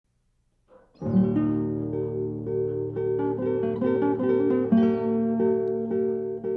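Acoustic guitar music, plucked and strummed, coming in about a second in after a moment of silence.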